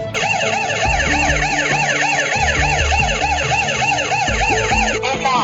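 Burglar-alarm siren of a Wi-Fi home security alarm system sounding a fast warbling wail, about four rises and falls a second. It starts just after the opening and cuts off abruptly near the end.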